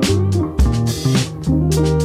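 Background music with a steady drum beat, guitar and bass guitar.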